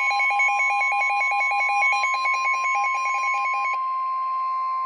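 Emergency Alert System attention signal heralding a weather warning. A steady single-pitch alert tone sounds throughout, with a fast, warbling electronic beep pattern over it that stops about three-quarters of the way through, leaving the plain tone.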